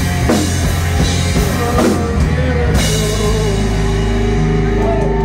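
Live rock band playing electric guitars, bass and drums. About three seconds in the drums stop and a final chord is left ringing out, the end of the song.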